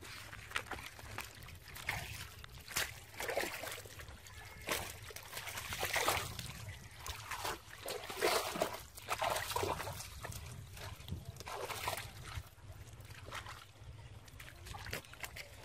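Hands splashing and sloshing in shallow muddy water, with irregular small splashes and trickles as the water is stirred and scooped while feeling for fish.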